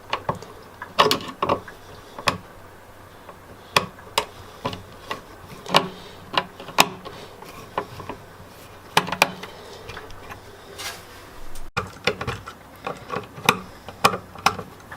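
Screwdriver turning out the mounting screws of a wall outlet and the outlet being worked loose from its box: irregular clicks and short scraping sounds.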